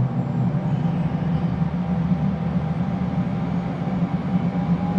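Right-hand Williams FJ44-3A turbofan of a Cessna Citation CJ3+ spooling up during its starter-driven engine start, heard from the cockpit as a steady drone with a thin whine creeping slightly up in pitch.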